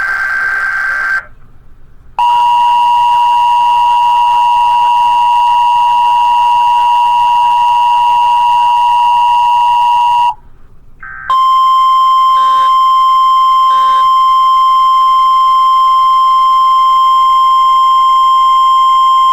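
Emergency Alert System tones. The tail of a SAME data burst ends about a second in, then after a short pause comes the two-tone attention signal, a steady dual tone held for about eight seconds. After another brief pause a single steady weather-radio alert tone starts and runs on.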